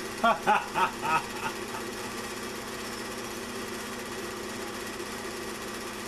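Steady whirring of a small machine running, with a fast, even chatter under it. Brief bits of voice come in the first second or so.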